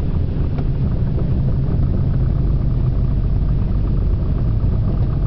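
Velocity canard aircraft's rear-mounted piston pusher engine running steadily with a low rumble, heard from inside the cockpit.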